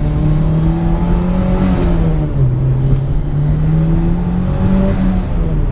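Mitsubishi Lancer Evolution VIII's turbocharged four-cylinder engine pulling under acceleration. The engine note rises steadily, drops sharply at an upshift a couple of seconds in, climbs again and drops once more near the end.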